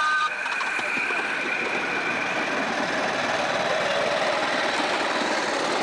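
Miniature live steam locomotive running past close by, its exhaust chuffing in a busy, steady rhythm.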